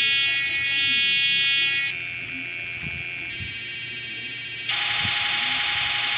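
Black MIDI playback: huge numbers of synthesized piano notes sounding at once, merging into a dense, buzzing cluster of held tones. The sound drops to a quieter chord about two seconds in and jumps back to a loud, harsh block near five seconds.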